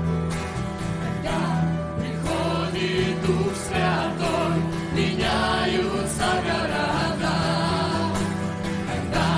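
A worship choir and band singing a hymn, with acoustic guitar and bass guitar accompanying the voices.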